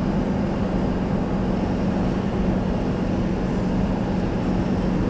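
Steady road and engine noise inside a moving car's cabin at cruising speed, with a constant low drone.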